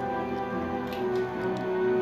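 Background music with sustained, steady notes.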